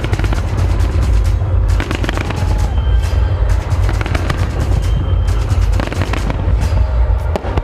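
Fireworks display: rapid runs of bursts and crackling shots over loud music with a heavy bass.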